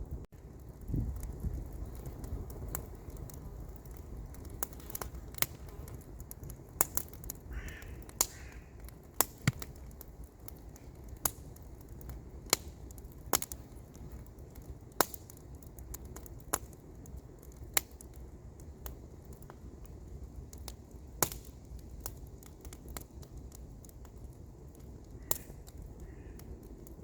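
Wood campfire crackling, with sharp single pops every second or two over a steady low rumble. A bird calls briefly about eight seconds in and again near the end.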